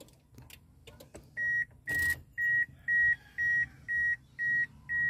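Toyota Vios's in-car warning buzzer beeping steadily, about two high beeps a second, starting after a few faint clicks of the key at the ignition. The engine is not running.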